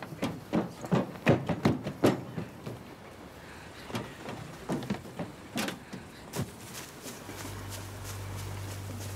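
A quick run of sharp knocks or taps that thins out to single knocks after about two seconds, then a low steady hum sets in about seven seconds in.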